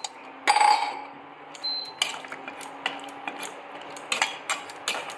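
Metal spoon or spatula clinking and scraping against a metal pan of vegetables as they are stirred, a run of short clinks, with a louder clatter about half a second in.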